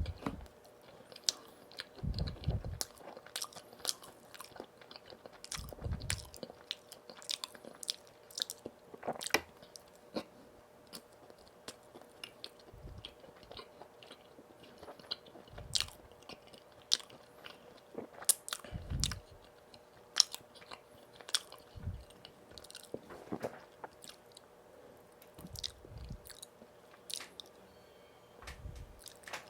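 Close-miked eating of donuts: bites and chewing with many sharp little mouth clicks and a few short low thuds, over a faint steady hum.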